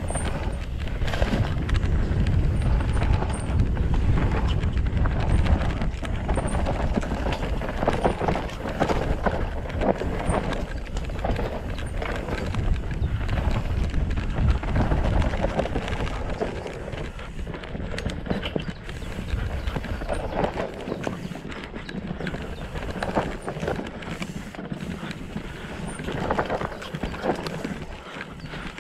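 Mountain bike descending a dirt singletrack at race speed: knobbly tyres running over dirt and roots while the bike clatters and rattles over the bumps. Wind buffets the microphone, heavier in the first half.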